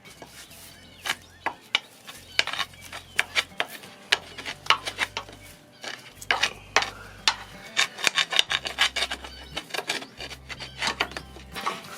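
Hand tools scraping and clicking irregularly against metal while the tractor's power steering cylinder is worked loose, several sharp clicks a second with rubbing in between.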